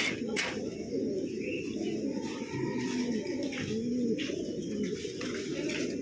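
Many racing pigeons cooing at once: a dense, overlapping chorus of low coos that rise and fall, with a few sharp clicks near the start.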